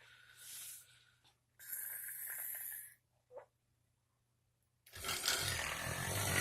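Put-on, exaggerated snoring by a woman: two short breathy snores in the first three seconds, a pause, then a longer, louder snore with a low buzz starting about five seconds in.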